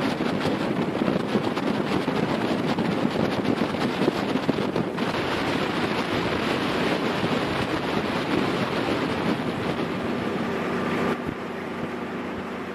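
Boat engine running under way, with wind rushing over the microphone. About five seconds in the hiss thins, and near the end it drops to a quieter, steady engine hum.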